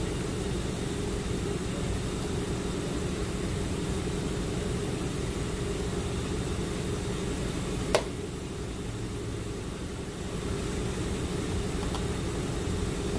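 A steady machine hum, like a running engine or a fan, with one sharp click about eight seconds in.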